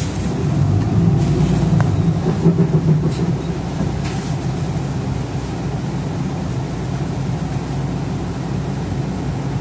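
City bus engine heard from inside the passenger cabin, running harder for the first few seconds as the bus moves off, then settling to a steady hum. Two light clicks come about three and four seconds in.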